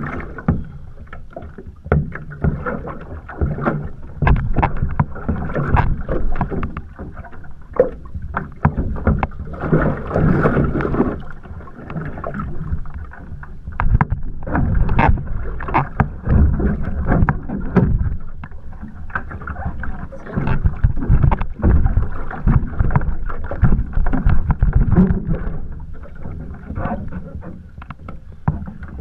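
Choppy water slapping and splashing against the hull and ama of a one-person outrigger canoe (OC1), in irregular slaps and splashes.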